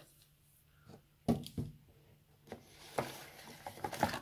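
Phone box and its contents being handled: a sharp knock about a second in, a lighter tap, then rustling from about three seconds in.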